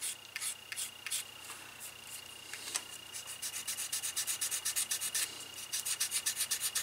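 Sandpaper rubbed by hand along the soft sheepskin edge of a leather handle, sanding in a bevel: a few slow scratchy strokes, then quick short strokes about five a second from about three seconds in.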